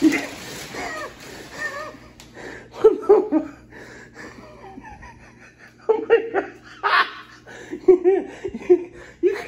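A man laughing in several short bouts, with a few short knocks between them.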